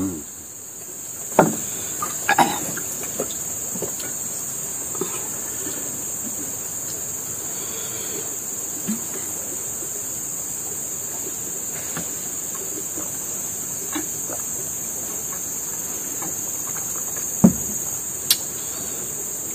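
Steady, high-pitched insect chorus from the surrounding forest, with a few scattered clinks of spoons on plates and pots.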